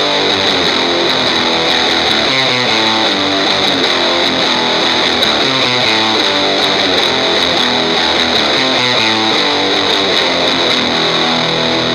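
Electric guitar playing a riff on its own, with no drums, over a steady high hiss.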